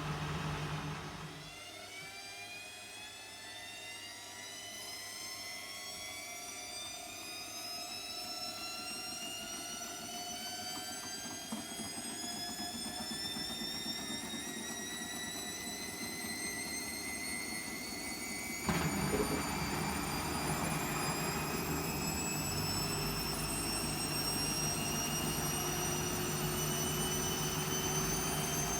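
Hotpoint WMFUG742 washing machine spinning a heavily loaded drum of towels; the motor's whine climbs steadily in pitch as the drum speeds up. A low hum stops about a second and a half in, and a louder low rumble comes in suddenly about two-thirds of the way through.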